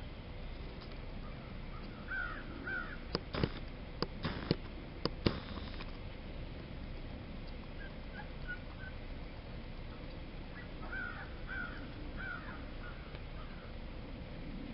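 Open-air ambience with a steady low rumble. Birds call in short pairs, once about two seconds in and again several times around eleven to thirteen seconds. A cluster of about six sharp clicks, the loudest sounds, falls between about three and five seconds in.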